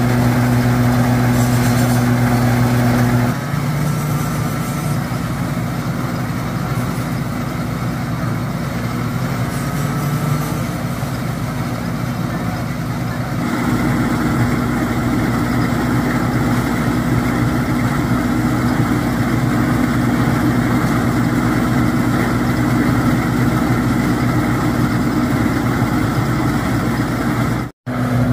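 Mini rice thresher running with a steady motor drone. The sound shifts abruptly about three seconds in and again about halfway, and drops out for an instant near the end.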